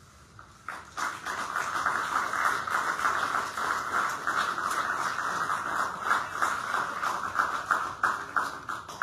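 Audience applauding, starting about a second in and stopping suddenly near the end.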